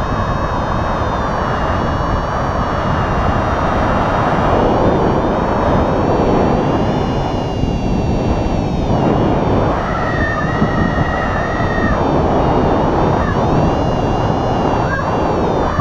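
Airflow rushing over an action camera's microphone in paragliding flight, a steady loud rush. About two-thirds of the way through, a steady high tone sounds for about two seconds over it.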